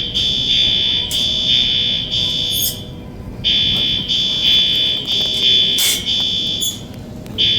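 Building fire alarm sounding a loud, high-pitched electronic tone in blasts of about three seconds, broken by short pauses. One blast stops about 2.7 seconds in, the next runs from about 3.5 to 6.8 seconds, and another starts near the end.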